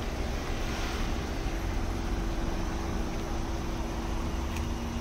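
An engine running steadily: a low rumble with a steady hum.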